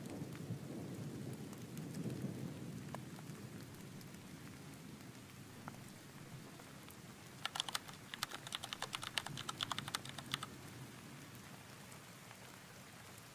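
Thunderstorm ambience: a low rumble of thunder fading over the first few seconds under faint steady rain. About halfway through comes some three seconds of rapid light clicking.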